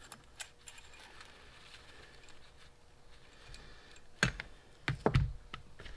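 Small carburetor parts clicking and tapping as they are handled by hand during disassembly, with a few sharper knocks about four and five seconds in.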